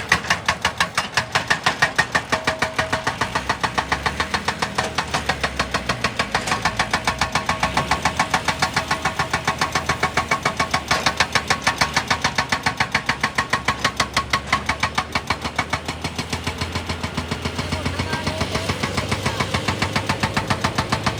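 Hydraulic rock breaker on an excavator hammering rock in a fast, even rhythm of about five blows a second, with the machine's engine running underneath.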